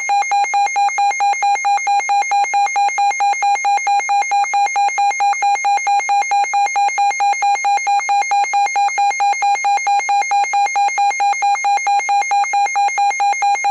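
Electronic alert tone: a buzzy beep pulsing rapidly, about five times a second, at a steady pitch. It is the attention signal that sounds just before an emergency alert message is read.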